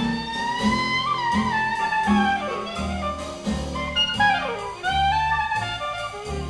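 Clarinet playing a jazz solo, a flowing melodic line with two quick downward runs about two and four seconds in, over plucked string bass and drums.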